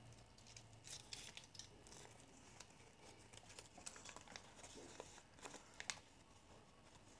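Faint rustling and crinkling of a small rolled paper message scroll being picked out and opened, with a few soft clicks.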